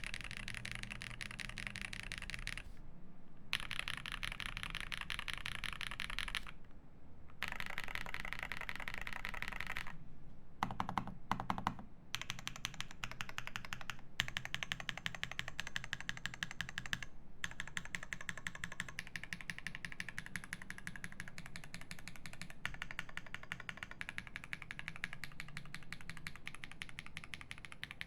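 Rapid typing on a Phase One mechanical keyboard with lubed Zaku switches in an aluminium plate and GMK keycaps: a dense, even run of keystrokes with a few brief pauses and several louder strokes about eleven seconds in.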